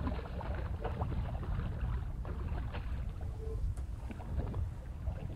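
Water splashing in short scattered bursts as a large hooked fish thrashes at the surface beside a fishing boat, over a steady low rumble of wind on the microphone.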